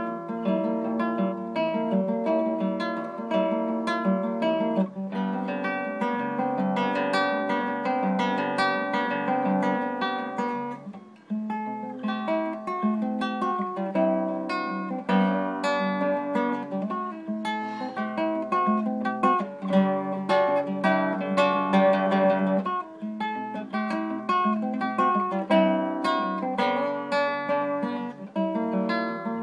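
Nylon-string classical guitar played fingerstyle, a solo instrumental piece of plucked notes and chords that briefly falls away about eleven seconds in before carrying on.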